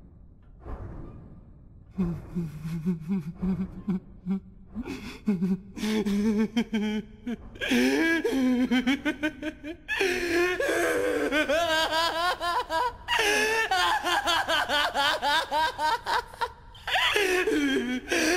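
A man's voice laughing: low, breathy chuckles start about two seconds in and build into loud, high-pitched, maniacal laughter from about eight seconds in, with a brief break near the end.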